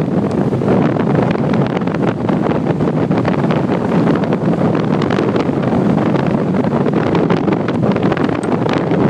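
Wind rushing over the microphone of a skier moving fast downhill, with the skis scraping over the snow underneath. Steady and loud throughout.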